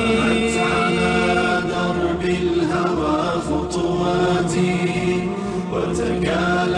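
Nasheed sung by several voices: a drawn-out melody carried over a steady vocal drone.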